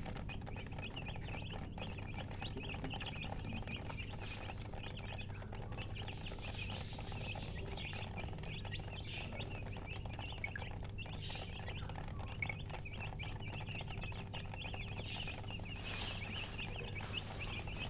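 A group of newly hatched chicken chicks peeping continuously in a dense chorus of high chirps, over a low steady hum.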